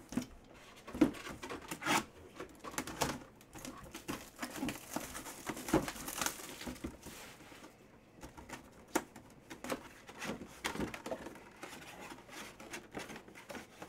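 Plastic shrink wrap crinkling and tearing as it is peeled off a cardboard box, with irregular clicks and knocks as the box is handled. A longer tearing hiss comes about five to seven seconds in.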